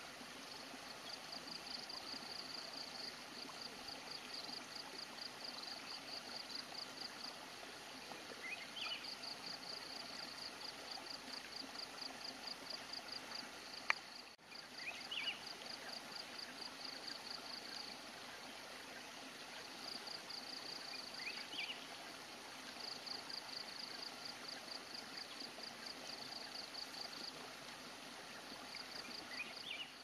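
Low, steady stream ambience. Over it, a high, rapidly pulsed insect trill repeats in bursts of a few seconds, and a short rising call comes about every six seconds. A single sharp click sounds near the middle.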